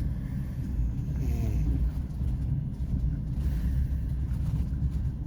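Steady low rumble of a passenger train carriage, with a brief faint voice about a second in.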